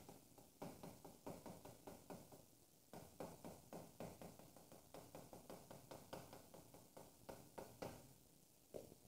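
Chalk writing on a blackboard: a faint, irregular run of quick taps and short scratches as characters are written, easing off briefly near the end.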